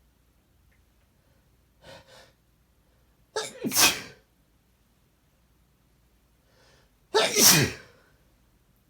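A person sneezing twice, the first about three seconds in and the second about seven seconds in, each preceded by a faint inhale.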